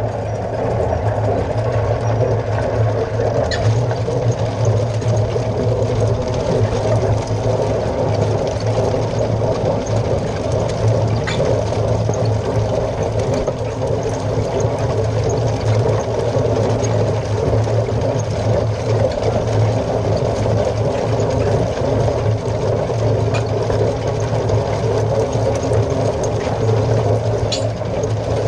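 Niemeyer RS 640 twin-rotor hay rake at work behind a Deutz Agrotron 120 tractor: the rotors and tine arms turning with a steady mechanical rattle and the tines sweeping through cut grass, over the tractor's diesel engine running steadily. A few sharp clicks stand out now and then.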